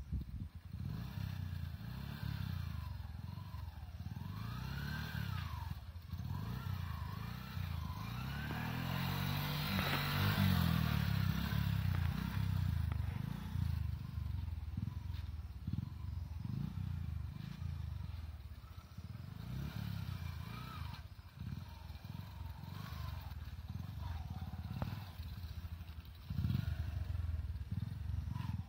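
Bajaj single-cylinder motorcycle engine running as a learner rider pulls away, revving up and down in pitch several times in the first few seconds. It is loudest about ten seconds in, then carries on lower and uneven as the bike moves off down the road, swelling again near the end.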